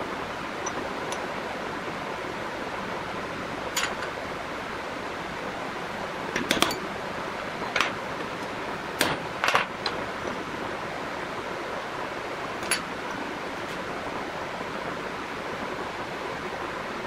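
Metal spur gears being handled and set down on a metal plate on a workbench, giving several short clinks and knocks at irregular intervals, over a steady background hiss.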